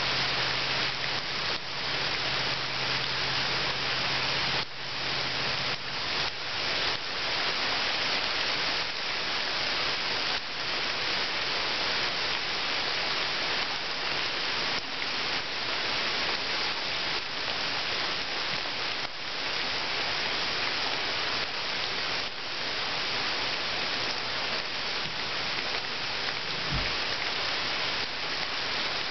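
Steady rain falling into a puddle of water: a dense, even hiss of many drops.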